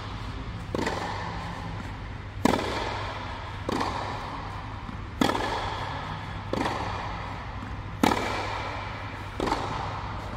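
Tennis balls struck with rackets in a baseline rally on a clay court, about seven sharp hits alternating louder and fainter as the two ends of the court trade shots. Each hit echoes briefly inside an inflated air-dome hall.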